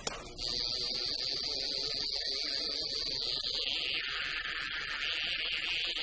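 Electronic hissing sound effect on an animated film's soundtrack: a steady band of high noise that starts about half a second in and widens to a lower, fuller hiss about three seconds in.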